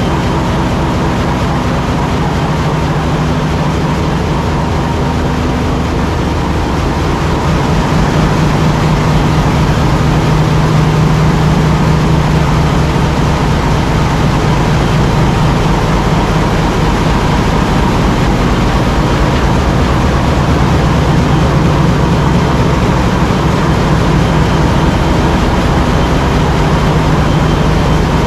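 Cruise ship engine room machinery, with large marine diesel engines running: a loud, steady drone with a low hum under a dense hiss, growing a little louder about eight seconds in.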